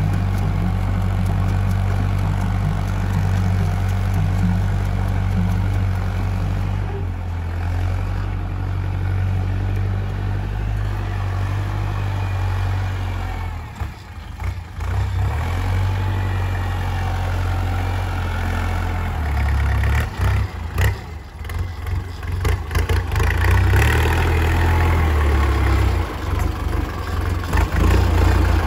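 Diesel engine of a 50-horsepower Kubota tractor running steadily under load as it pulls a sugarcane planter, growing louder near the end as the tractor comes close.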